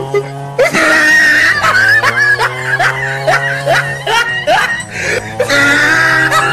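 Background music with a steady low drone, overlaid with repeated short sliding, voice-like cries.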